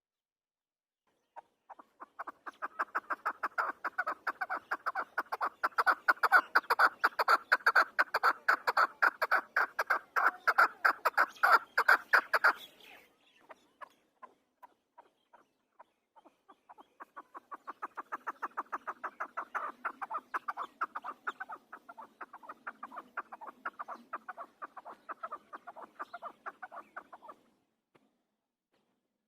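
Chukar partridge calling: a long run of rapid, repeated clucking notes that builds louder over about eleven seconds and stops suddenly. After a short pause, a second, fainter run of the same notes follows.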